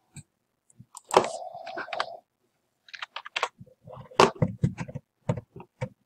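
Computer keyboard keystrokes and mouse clicks in irregular runs, with a dense cluster about a second in and another from about three seconds on.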